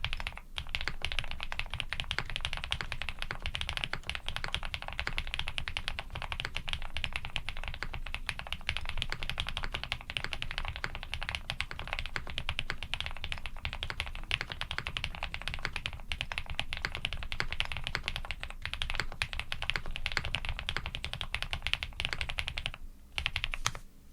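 Fast, continuous typing on a Mr. Suit custom mechanical keyboard: Cherry-housing, cream-stem switches lubed with Krytox 105 and 205, on a POM plate with GMK keycaps, making dense key clacks. There is a short pause about a second before the end.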